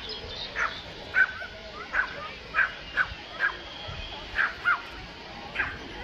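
A dog barking over and over, with about nine short, sharp barks in quick succession.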